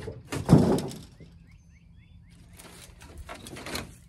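Salvaged camper parts being dragged and shifted in a scrap pile: a loud scraping clatter about half a second in, and a quieter rustling scrape near the end. A bird chirps several short notes in between.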